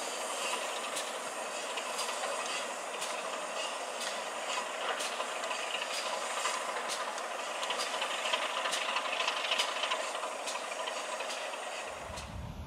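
Steam-hauled train running past: a steady hiss with sharp clicks about once a second, typical of wheels over rail joints. A low rumble comes in near the end.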